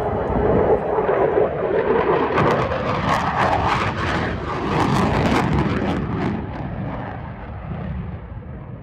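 F-15C Eagle fighter jet's twin turbofan engines during a low pass. The jet noise builds to a crackling peak a few seconds in, then fades as the jet moves away.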